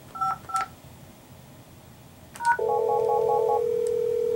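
Two touch-tone key beeps as digits are dialled on a Cisco SPA509G IP phone's keypad to transfer a call to another extension. About two and a half seconds in comes a click and a short beep, then a steady ringback tone, with a fast warbling ring from the second desk phone over it for about a second.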